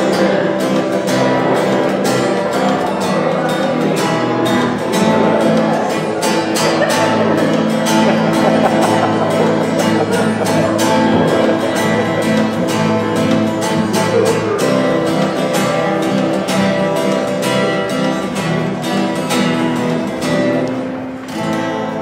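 Instrumental music on a plucked string instrument: quick runs of plucked notes over long-held low notes, easing off near the end.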